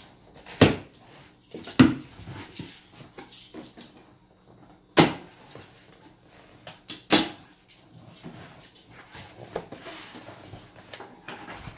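Cardboard box being opened by hand: packing tape slit with a utility knife and the flaps pulled open, with four sharp rips or snaps and light cardboard rustling between them.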